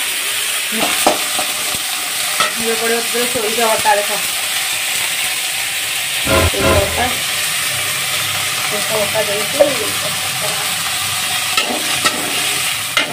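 Drumstick pieces sizzling in hot oil in an aluminium kadai, stirred and scraped with a metal spatula, with scattered knocks of the spatula on the pan. About six seconds in there is a louder clatter as masala paste is tipped in from a mixer jar.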